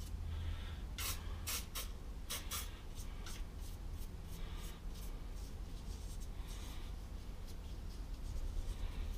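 A small brush scrubbing olive oil into the carved cavities of a plaster of Paris mold, making short scratchy strokes. The strokes come fast about a second in and are softer and sparser later, over a steady low hum.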